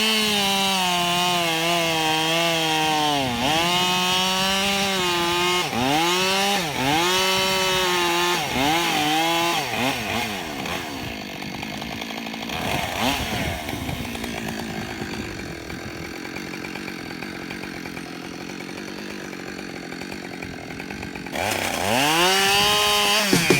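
Husqvarna 572 XP two-stroke chainsaw cutting through ash at full throttle, its pitch dipping and recovering several times as the chain loads up in the wood. About ten seconds in it drops to a quieter, lower running, then revs up again near the end.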